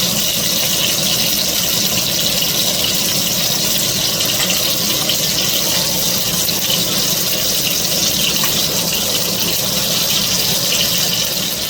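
Chicken pieces frying in hot oil in a frying pan: a steady, loud sizzle with fine crackling.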